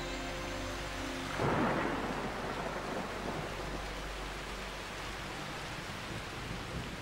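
A thunderclap breaks about a second and a half in, then steady monsoon rain keeps falling.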